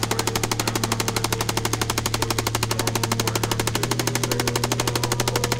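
Light machine gun firing one long unbroken automatic burst at about a dozen shots a second. A steady low hum runs underneath.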